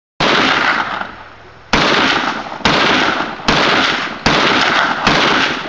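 Smith & Wesson Model 500 revolver, chambered in .500 S&W Magnum, fired six times in quick succession, about a second apart. Each very loud report is followed by a long, rolling echo.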